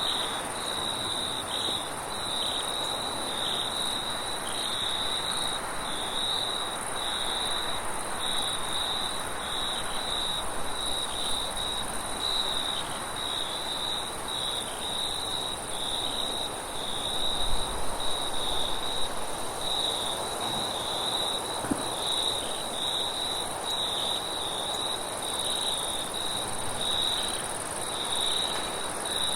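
Crickets chirping in a steady, evenly pulsing trill over a constant high hiss, with wind noise beneath. The wind swells briefly louder about 17 seconds in.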